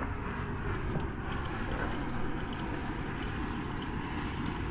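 Steady distant engine drone with an even rushing noise, no clear starts or stops.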